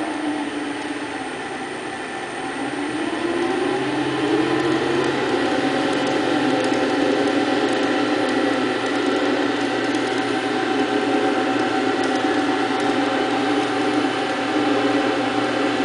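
Broom-handle wood-turning lathe running on a variable-speed inverter drive. Its pitch dips about two seconds in, then climbs over the next few seconds as the speed is turned up, and it runs steadily after that.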